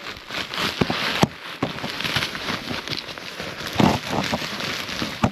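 Snowshoes crunching and packing into deep snow in uneven steps, with hard breathing between them.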